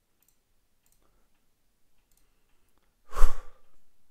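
A man's single heavy sigh about three seconds in, a short loud breath out close to the microphone, then a faint trailing breath.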